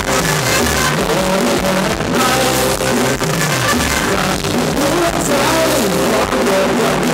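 Live band playing upbeat Thai ramwong dance music, with a moving bass line over a steady beat.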